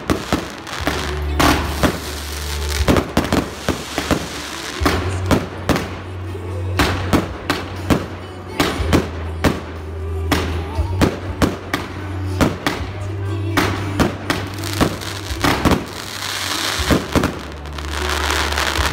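Fireworks display: a rapid, irregular series of sharp bangs from bursting shells, with a denser crackling hiss near the end. Music with a steady bass plays underneath.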